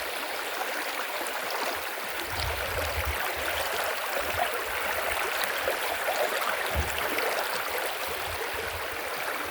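Steady rushing of flowing water, like a stream, with irregular low rumbles underneath.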